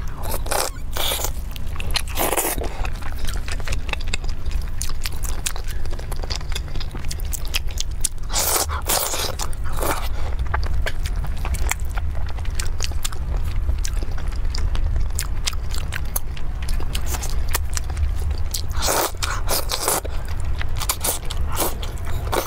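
Close-miked eating of spicy sauced pork ribs: biting and chewing with many small mouth clicks, in louder bouts about half a second in, around nine seconds and around nineteen seconds, over a steady low hum.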